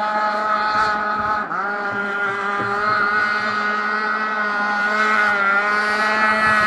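Two-stroke gasoline engine of a large RC boat running at speed, one steady high note. About a second and a half in, the pitch dips briefly, as when the throttle is eased, then picks back up.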